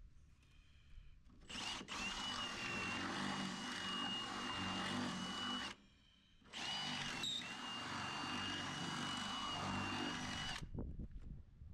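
Power drill drilling out holes in a car bumper to take rivet nuts: two runs of about four seconds each with a steady high whine, starting and stopping abruptly with a short pause between.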